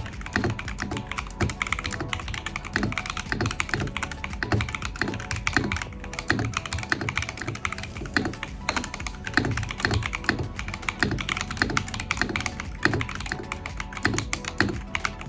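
Mechanical keyboard with AKKO Cream Yellow Pro linear switches being typed on fast and continuously, a dense run of key clacks over quiet background music.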